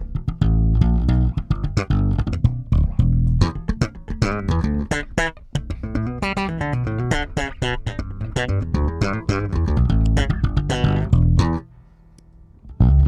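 Electric bass guitar played through a Tone X amp-modelling preamp and compressor, a run of fast plucked and slapped notes with sharp attacks. The playing stops briefly near the end, then starts again.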